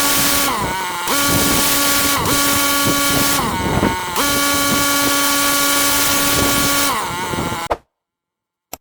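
Engine-driven pressure washer running steadily with the hiss of its high-pressure spray, the engine note dipping briefly about four times. It cuts off abruptly near the end.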